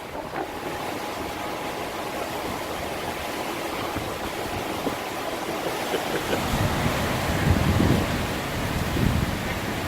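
Hurricane wind blowing hard and steadily, with gusts swelling and buffeting the microphone in the second half.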